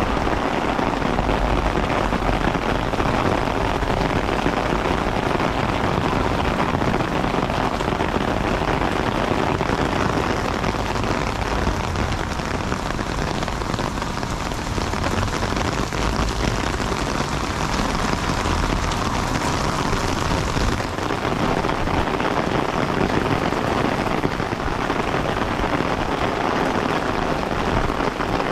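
Heavy rain falling steadily on the street and pavement, a continuous even hiss of rain.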